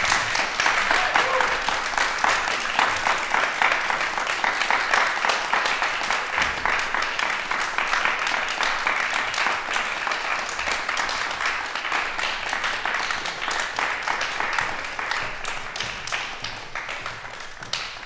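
Small audience applauding, a dense patter of many hands clapping that thins out and fades near the end.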